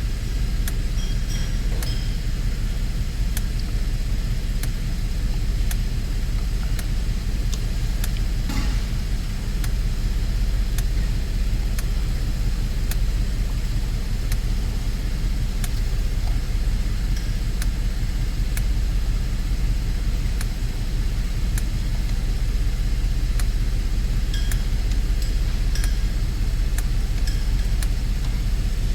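A car's engine running steadily, heard as a low rumble, with faint scattered clicks over it.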